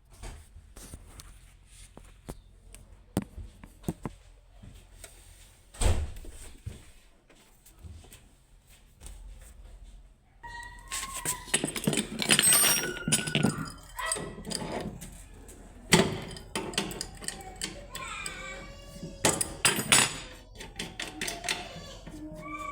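Scattered knocks and thuds, the loudest about six seconds in. From about halfway on, indistinct voices run over further knocks.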